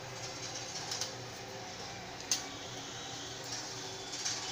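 Steady low kitchen hum over a light hiss, with one sharp click about two seconds in and a few soft handling noises. The oil is not yet sizzling.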